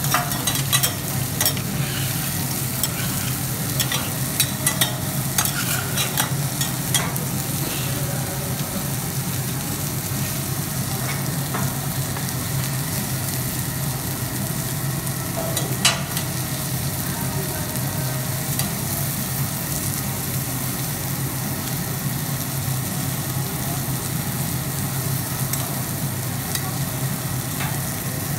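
Diced chicken frying in oil on a hot flat-top teppanyaki griddle, a steady sizzle. Sharp clicks of metal spatulas against the griddle come several times in the first few seconds and once about halfway through.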